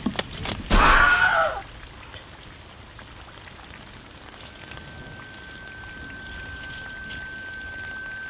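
A short, loud scream falling in pitch, the stock Wilhelm scream sound effect, about a second in, over a steady rain-like hiss. From about halfway through, a steady high-pitched tone sets in and holds.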